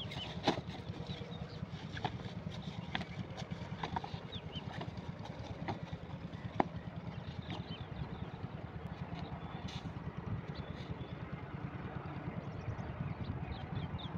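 Diesel water-pump engine running steadily with a low, rapid thudding, with scattered light clicks over it. A quick series of high chirps comes in near the end.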